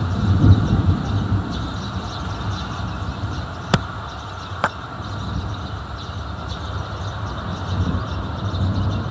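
Distant thunder rumbling low and long, swelling in the first second or so and again near the end. Two short sharp clicks in the middle.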